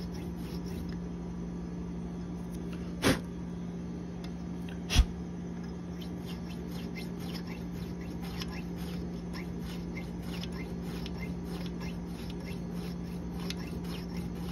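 Two sharp metal clicks about two seconds apart, then faint light ticks, as a field sharpener is worked on broadhead blades clamped in a vise, over a steady low hum.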